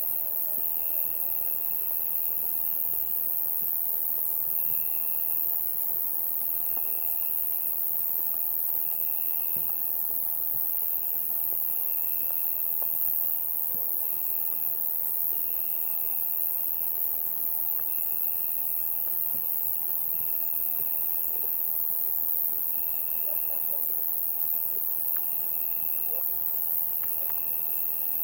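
Summer night insect chorus: a dense, steady, high-pitched insect hiss, with a cricket-like trill about a second long repeating every second or two.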